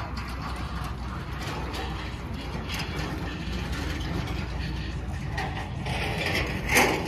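Light, irregular mechanical rattling and clicking over a steady low rumble, with one brief louder sound near the end.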